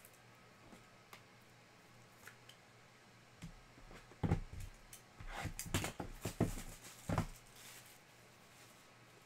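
Foil wrapper of a trading-card pack crinkling as it is handled and opened, a few seconds of crackly rustles in quick succession starting about three and a half seconds in.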